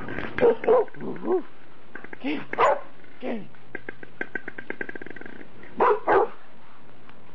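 Dog barking in short barks, a pair about half a second in, more around two to three seconds, and another pair near six seconds, with quick faint ticking between the barks.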